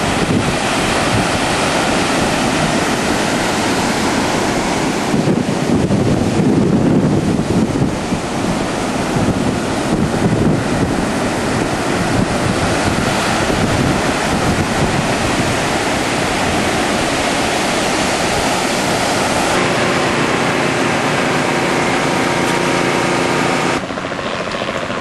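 Rough hurricane-driven surf breaking on a beach, with wind buffeting the microphone. In the last few seconds a steady low hum from a helicopter joins in.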